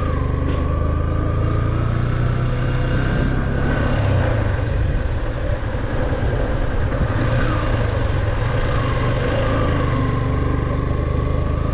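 Motorcycle engine running at a steady riding speed, its pitch easing a little up and down, over a low rumble of wind on the microphone.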